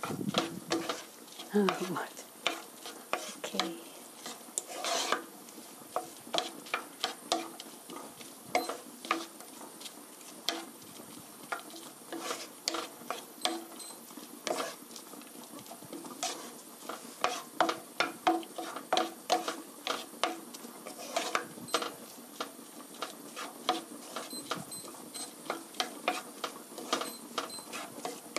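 Wooden spatula stirring and scraping diced onion, garlic and carrot around a frying pan, with repeated clicks and scrapes against the pan a few times a second. Under it a light sizzle of the vegetables sautéing in olive oil.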